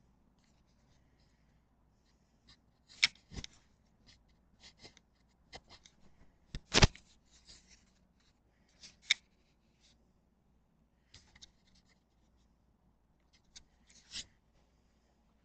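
Irregular small clicks, rustles and knocks, with two sharper knocks about three and seven seconds in, over a faint low hum.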